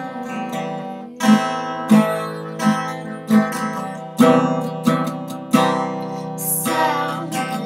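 Acoustic guitar strummed in a steady rhythm, with a strong strum about every two-thirds of a second over ringing chords.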